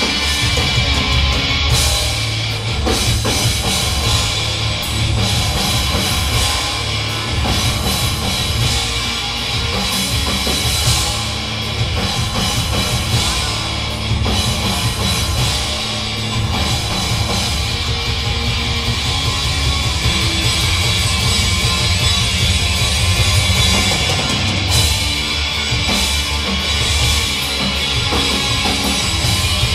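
Chaotic hardcore punk band playing live: electric guitar, bass guitar and drum kit, steady and loud throughout.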